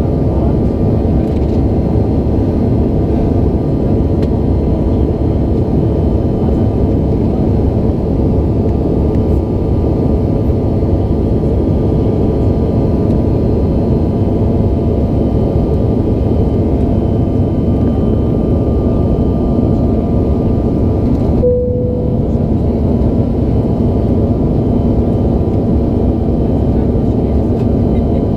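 Steady cabin noise of a Bombardier CRJ-900 in flight, with the drone of its rear-mounted turbofan engines. A single short cabin chime sounds about three-quarters of the way through and fades.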